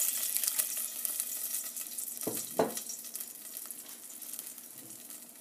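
White wine sizzling and crackling as it hits hot olive oil and sautéed garlic in a saucepan, the sizzle gradually dying down. Two short knocks a little past two seconds in.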